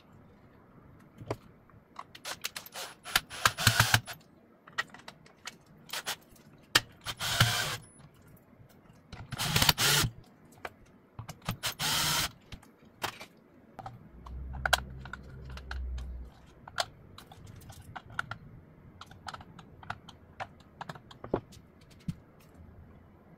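Plastic clicks and knocks of a car speaker and its plastic mounting adapter ring being handled, with a few louder crackly bursts in the first half. A cordless drill/driver turns a screw in the ring, its motor running steadily for about two seconds past the middle.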